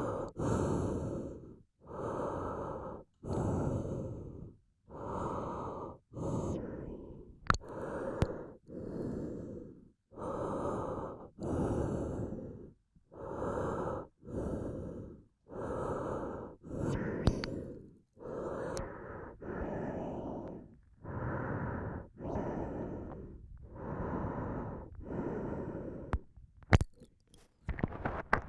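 A person breathing in and out steadily, close on a Deity W.Lav Pro omnidirectional lavalier microphone, about one breath every second and a half. A few sharp mouth clicks from saliva come through between the breaths.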